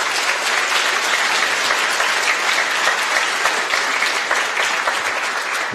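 Large audience applauding steadily, fading away near the end.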